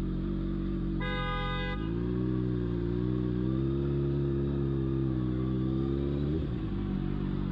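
Sportbike engine running, then pulling away from about two seconds in, its pitch rising and wavering before dropping about six seconds in. A horn sounds once, briefly, about a second in.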